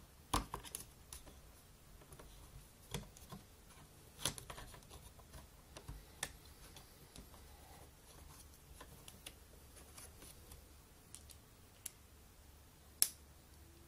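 Faint, irregular small clicks and taps of small hand tools being handled. The sharpest click comes about a second before the end.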